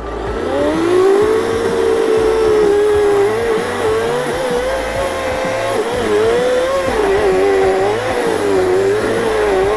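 Greenworks cordless battery chainsaw spinning up about half a second in and cutting into a tree trunk to make a felling notch. Its motor whine rises at first, then sags and wavers in pitch as the chain bites into the wood under load.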